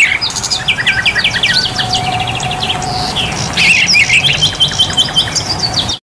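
Several songbirds singing together, a busy mix of quick sweeping whistles and rapid repeated chirps, over a steady background hiss; it all stops abruptly at the end.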